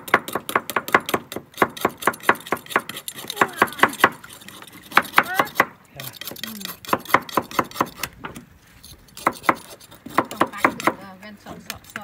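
Mussel shells clicking and clinking against one another in rapid, irregular bursts as a clump of mussels is pulled up from the water and handled.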